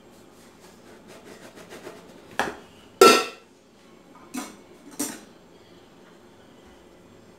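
Dishes and utensils being handled on a kitchen counter: light scraping and tapping, then four sharp clinks and knocks, the loudest about three seconds in with a brief ring.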